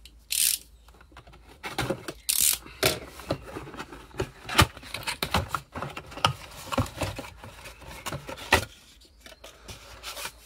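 A cardboard box being opened by hand. Two short scraping rips come as the tabs are pulled free, then a busy run of cardboard rustles and knocks and paper crackle as the flaps are folded back and the leaflets are lifted out.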